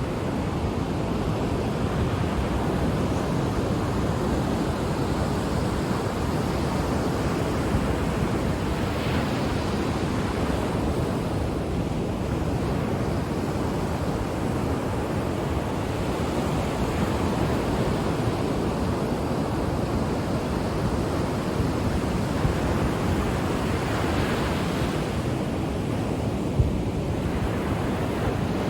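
Ocean waves breaking and washing on the shore, a steady surf noise that swells gently every few seconds, with some wind on the microphone.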